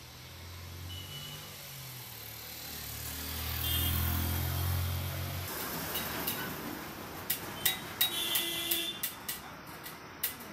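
Street ambience with a road vehicle's engine humming, growing louder as it draws near and cut off abruptly about halfway through. Then, from about two-thirds of the way in, a ticking music sting with sharp, regular clicks.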